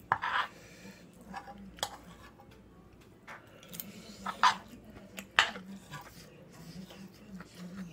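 Metal spoon scraping and clinking against a frying pan while fried rice is scooped up: a longer scrape near the start, then a few separate sharp clinks and scrapes.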